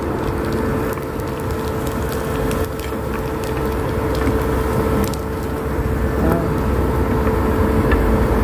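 Rengginang rice crackers frying in oil in a small pan on an induction cooker: the oil sizzles with scattered crackles and scrapes of a metal spatula against the pan, over a steady low hum.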